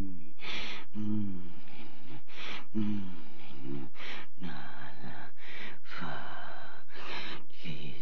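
A wordless demon-voice performance from the film's isolated dialogue track: low, strained groans alternating with harsh, rasping gasps and breaths, several in quick succession.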